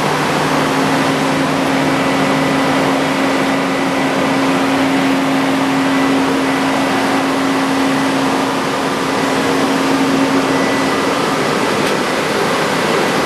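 Steady mechanical drone of running machinery, an even loud noise with a constant low hum through it.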